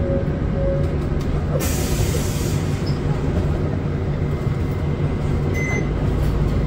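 Inside a Hino Blue Ribbon City Hybrid city bus: a steady low drone from the drivetrain and the road. A hiss joins in about a second and a half in.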